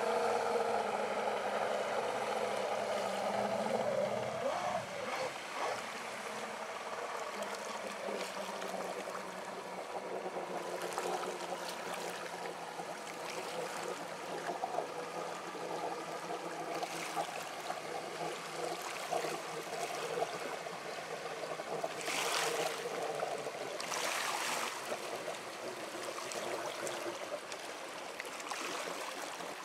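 Speedboat outboard motor running past at speed, its engine note clear for the first four or five seconds and then dropping away. After that, mostly the rush of water and wash, with a faint engine hum that comes and goes, and two brief louder rushes about two-thirds of the way through.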